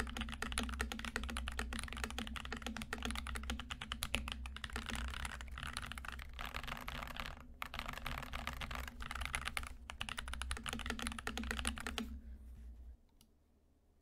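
Fast, continuous typing on a mechanical keyboard built with stock (unlubed) Akko V3 Cream Blue long-pole tactile switches: a dense run of key clacks. The typing breaks briefly about seven and a half seconds in and stops about twelve seconds in.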